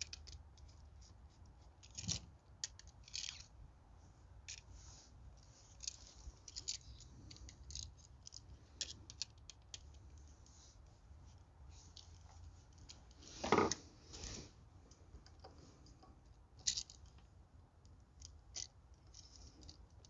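Small clicks, scrapes and light rattles of a screwdriver working the terminal screws of a GFCI outlet held in the hand, with one louder knock a little past halfway.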